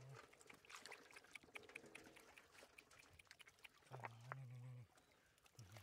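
Faint small splashes and drips of shallow stream water, stirred by hands, a bamboo basket and wriggling catfish. A brief low hum-like voice is heard about four seconds in and again near the end.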